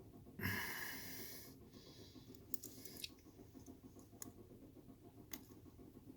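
A short hissing scrape about half a second in, then a few faint, sharp clicks of metal parts being handled while fitting parts onto a car's steering shaft.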